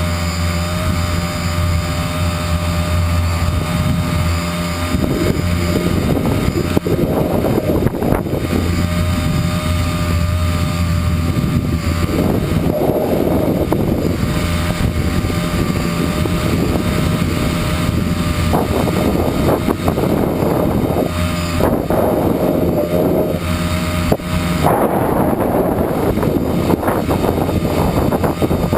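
Tricopter's electric motors and propellers humming steadily in flight, with rushing wind on the on-board microphone coming and going in gusts.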